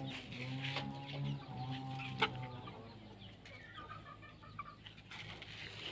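Chicken clucking in a series of low, drawn-out calls over the first half, with a sharp click about two seconds in.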